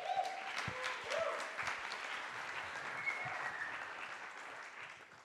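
Audience applauding, the clapping tapering off near the end.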